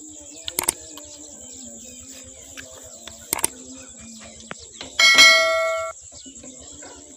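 Light metallic clicks as a new piston with rings is worked into the cylinder sleeve of a single-cylinder Peter diesel engine. About five seconds in comes a single loud metal clang that rings for about a second.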